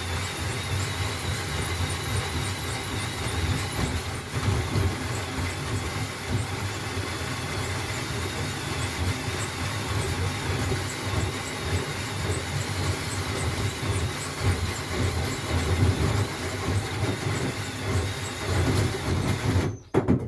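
Handheld power tool running continuously as it cuts, with a low hum and a high squeal, then cutting off abruptly near the end.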